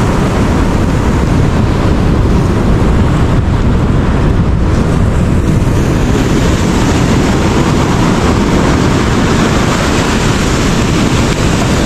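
Surf breaking and washing up a sand beach, with wind buffeting the microphone in a steady low rumble.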